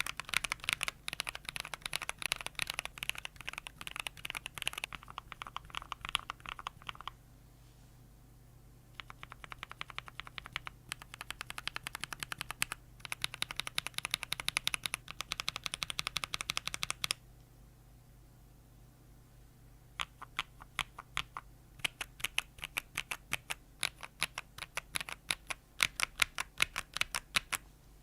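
Rapid typing on mechanical keyboards: dense runs of key clicks and clacks in three bursts, with pauses of two to three seconds between them.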